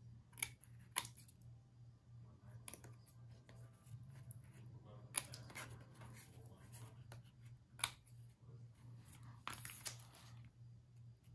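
Small craft scissors snipping paper, a few sharp separate snips with quieter cutting between, and a brief rustle of paper being handled near the end, over a faint low steady hum.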